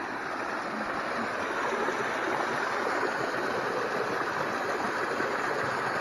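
Small waterfall pouring over rock into a pool: a steady splashing rush of water, growing a little louder over the first couple of seconds.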